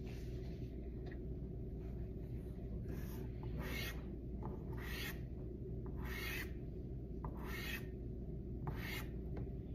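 Soft pastel stick stroked across paper: a series of scratchy rubbing strokes, about one a second from about three seconds in, over a steady low room hum.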